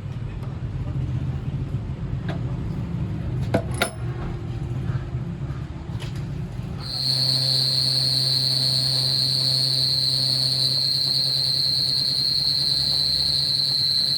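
Workshop machinery. A low rumble with a few sharp metallic clicks, then about seven seconds in a steady high-pitched whine with a low hum starts and holds.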